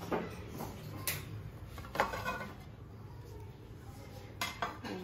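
A handful of light, scattered clinks of dishes and cutlery around a table laid with food: short, sharp knocks a second or two apart, two of them close together near the end.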